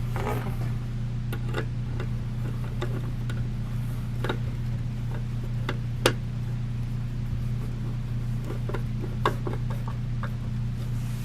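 Scattered small clicks and knocks of ceiling-fan parts being handled during assembly, with one sharper click about six seconds in and another near nine seconds, over a steady low hum.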